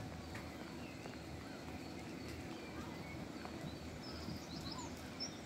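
Quiet station ambience beside a standing train: a steady low rumble, with a soft thump right at the start and a few faint bird chirps near the end.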